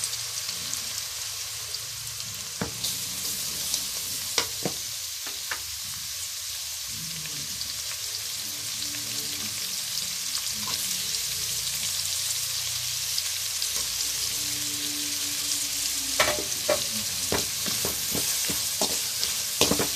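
Chopped onions frying in hot oil in a metal pot, a steady sizzle. From about sixteen seconds in, a perforated steel spoon clicks and scrapes against the pot as the onions are stirred.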